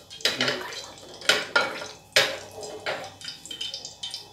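A cloth rubbed across a flat tawa griddle heating on a gas burner: about five short scraping swipes, with a light clatter of the pan.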